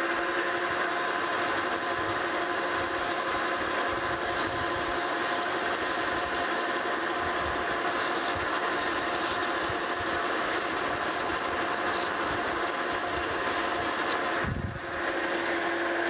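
Monarch 16-inch Model K metal lathe running with a steady whine while emery cloth rubs against the spinning steel pin, a steady rasping hiss. The sound briefly dips, with a low thump, near the end.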